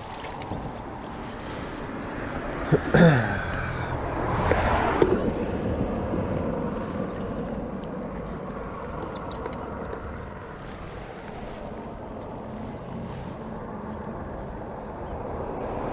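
Outdoor background of wind buffeting the microphone and road traffic, with a vehicle passing over the road bridge about four to five seconds in. A brief sharp sound with a quickly falling tone comes about three seconds in.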